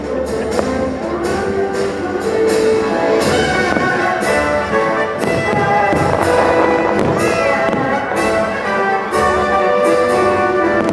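Orchestral music with brass, played as a fireworks show's soundtrack, with firework bursts cracking over it several times.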